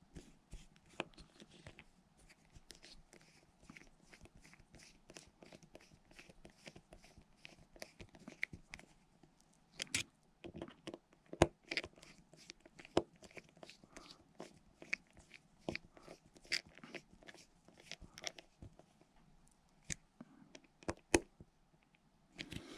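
Precision screwdriver driving small screws into a Daiwa Tatula CT baitcasting reel's frame: faint, irregular clicks and scrapes of metal on metal, with a few sharper ticks midway.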